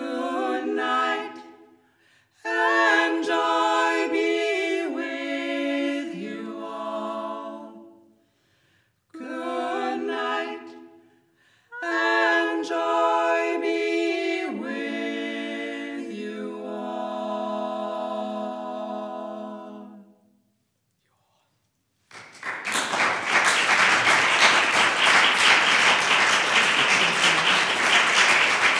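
A barbershop group singing a cappella in close harmony, in phrases with short breaths between them, ending on a long held chord. After a moment of silence, audience applause breaks out about three quarters of the way in and stays loud to the end.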